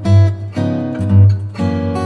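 Background music: strummed acoustic guitar chords over a strong, regular bass beat.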